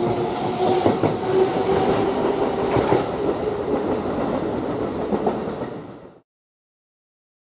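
Kintetsu limited express electric train running past along the platform, wheels clattering over rail joints under a steady hum of several tones. The sound fades about five and a half seconds in, then cuts to silence.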